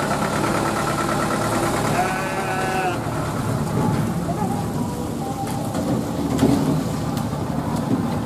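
A sheep bleats once, a wavering call about two seconds in, over the running engine of a small Daihatsu pickup truck pulling slowly past.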